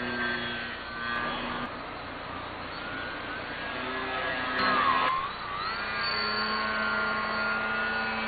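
Electric motor and propeller of a radio-controlled foam model airplane whining as it flies around overhead, its pitch shifting with the throttle. About five seconds in it is at its loudest, with a quick dip and rise in pitch.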